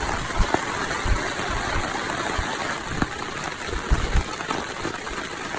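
Heavy rain falling in the open, a dense steady hiss, with irregular low thumps now and then.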